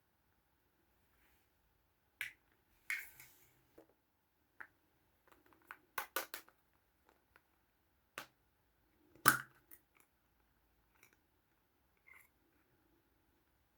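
Small plastic toys and capsules being handled, making scattered clicks and taps: a quick run of clicks about six seconds in and the sharpest click a little after nine seconds.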